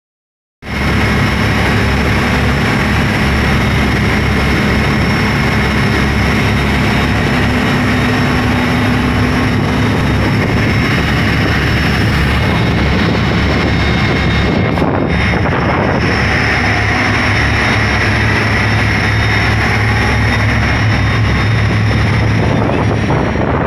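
A motor yacht's engines running steadily under way, a continuous low drone mixed with the rush of the churning wake.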